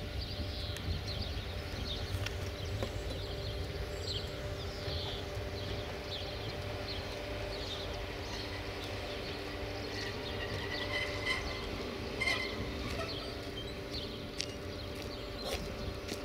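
Steady machine hum holding a few even tones over a low rumble, with short high chirps coming and going above it.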